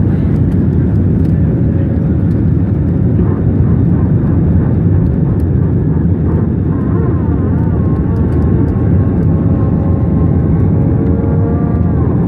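Airliner taking off: a loud, steady rumble of jet engines and rushing air, with a steady hum on top.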